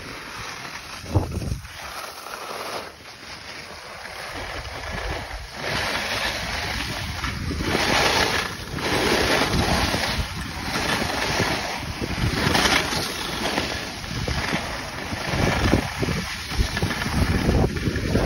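Wind rushing over a phone microphone together with the hiss and scrape of skis on packed snow during a downhill run, swelling and easing every second or two with the turns. It is quieter for the first few seconds, then louder.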